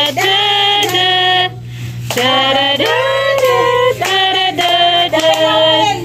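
Several voices, women and children, singing together in long held notes, with a short break about a second and a half in.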